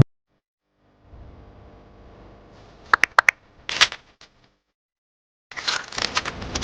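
Three sharp clicks in quick succession, then a short rattle and two faint ticks. After a brief pause comes a noisy run of clicking and rustling near the end.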